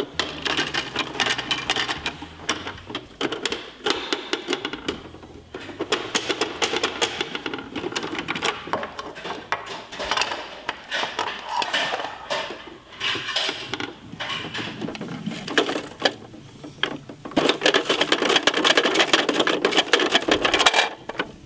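Hard plastic clicking and rattling of a Bruder 4143 toy recycling truck's rear bin lifter being worked by hand, in runs of rapid clicks with short pauses between them.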